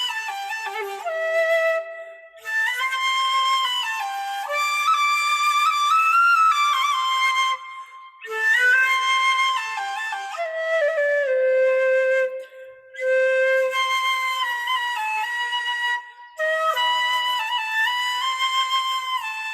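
Flute music: a melody played in phrases of a few seconds, separated by brief pauses, with more than one part sounding at once.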